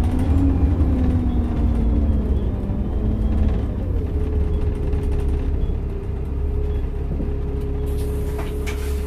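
Optare Solo SR single-deck bus heard from inside the saloon: a heavy engine and road rumble with a drivetrain whine that falls in pitch over the first few seconds, then settles into a steady higher whine. Near the end there is a hiss with a few clicks.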